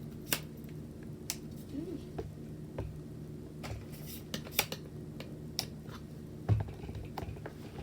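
Scattered sharp clicks and light knocks from handling a tripod and its parts, with one louder knock about six and a half seconds in, over a steady low hum.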